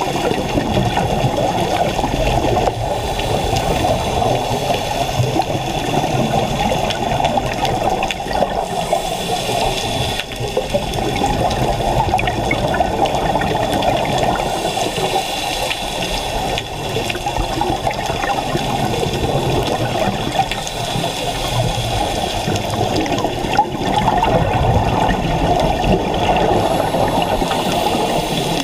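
Underwater recording: a steady, muffled rush of water and bubbles, loudest in the low range, swelling a little from time to time.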